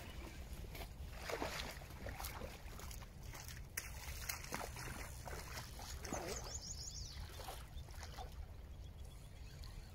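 Riverbank ambience: a low steady rumble with water sloshing and a few small splashes in the shallows, and a bird's quick run of falling high chirps about six and a half seconds in.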